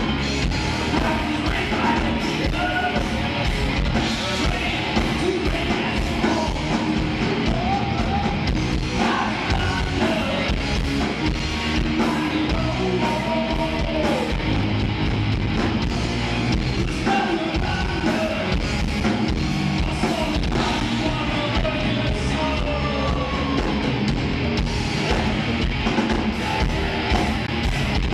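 Live hard rock band playing: distorted electric guitars, bass and drums, with a voice singing over it.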